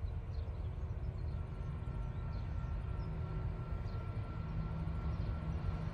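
Low, steady rumble of distant diesel locomotives approaching, with a hum that strengthens about four seconds in. Faint bird chirps sound above it.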